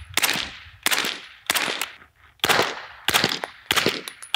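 Suppressed 9mm MP5K-pattern submachine guns, an MP5K with a Mega 9K can and an integrally suppressed MP5 SDK, fired in turn in single shots about two-thirds of a second apart. Each shot is a short sharp report with a trailing echo. There are seven shots, with a slightly longer gap about two seconds in where one shooter stops and the other starts.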